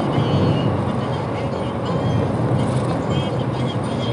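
Steady road noise of a car driving at speed on a highway: tyre and wind rumble, even throughout.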